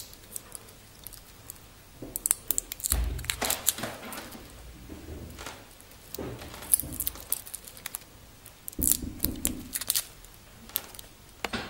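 Fingers peeling the protective plastic cover off a stainless steel watch, with its bracelet links clinking: scattered clicks, crinkles and rustles, and a few dull handling bumps.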